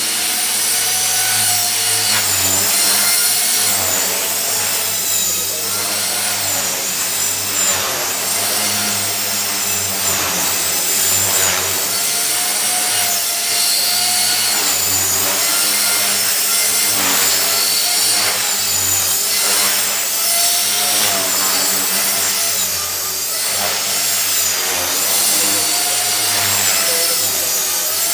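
T-Rex 450 electric RC helicopter with a Scorpion brushless motor flying 3D: a continuous motor whine and rotor-blade noise, its pitch rising and falling over and over through the manoeuvres.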